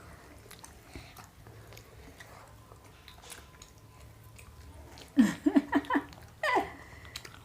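Quiet chewing and mouth clicks of people eating dosa. About five seconds in comes a quick run of short pitched vocal sounds, then one gliding vocal call.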